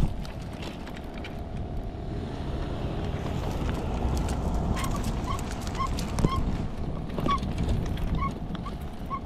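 Wheeled fishing cart rolling over a concrete pier: a steady low rumble from the wheels, with a sharp knock right at the start. From about halfway a small regular squeak joins in, two or three times a second.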